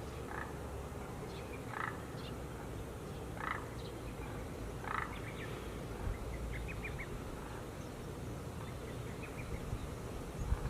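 Frogs calling: a short croak about every second and a half, four times, then a quicker run of short higher notes, over a steady low rumble.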